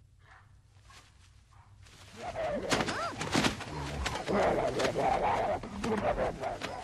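A scuffle with dogs growling and snarling, mixed with a person's cries. It starts abruptly about two seconds in, after a faint stretch, and carries on loudly.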